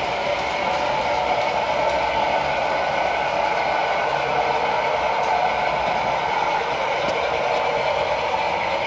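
Sound-fitted model Hymek diesel locomotive running, its DCC sound decoder playing a steady diesel engine sound through the model's small speaker. The volume has been turned down through decoder CV settings because it was too loud.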